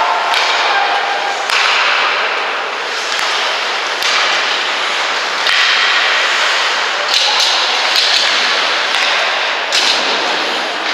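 Ice hockey play: skate blades scraping the ice in sudden hissing strokes, with sharp clacks of sticks and puck and occasional thuds.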